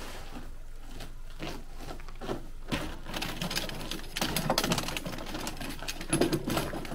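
Tent poles clicking and rattling as they are handled and the sections of a pole are fitted together, in quick clusters, the loudest near the middle and again near the end.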